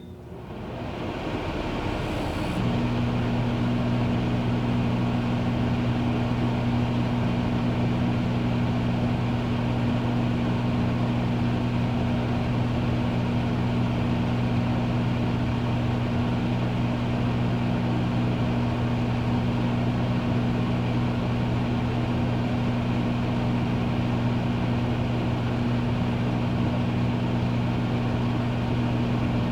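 Microwave oven running: a steady hum with fan noise that builds over the first couple of seconds, joined about two and a half seconds in by a deeper steady drone that holds unchanged.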